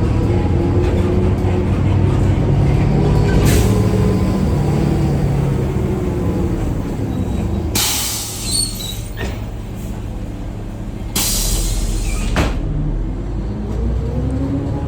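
CNG city bus engine running under load, its pitch rising and falling as the bus pulls away and changes gear. Two loud hisses of compressed air from the bus's air system break in, one about eight seconds in and a longer one about three seconds later.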